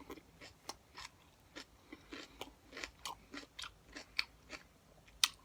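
A person chewing a hot pepper close to the microphone: soft, irregular wet crunches and mouth clicks, about two or three a second.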